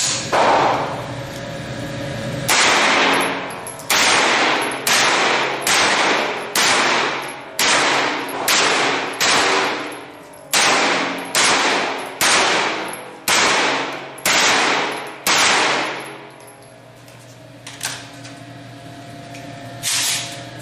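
Pistol shots fired in a long, steady string, about seventeen shots under a second apart, each with a long echoing tail. A quieter pause follows, with a small click and then one more shot near the end.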